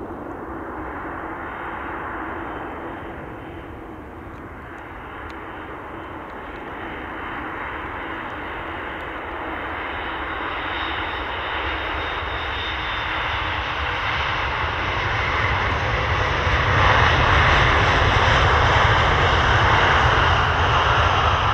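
Boeing 737 MAX 8 airliner's CFM LEAP-1B jet engines on landing: a steady jet noise that grows louder as the plane touches down and rolls out along the runway, loudest in the last few seconds, with a whine coming through near the end.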